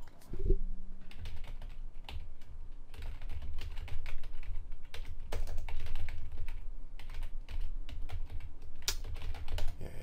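Typing on a computer keyboard: a fast run of key clicks with short pauses, and one louder key strike near the end.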